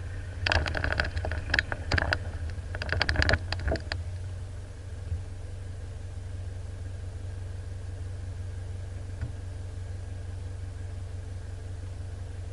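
Off-road four-wheel-drive's engine idling steadily, a low rumble.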